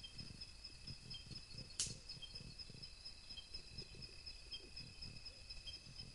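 Night forest insects trilling steadily at a high pitch, with a short chirp repeating about once a second. A single sharp click comes about two seconds in.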